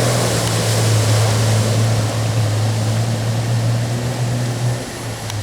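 Off-road 4x4's engine running steadily under a loud rushing of water, the rush easing off near the end.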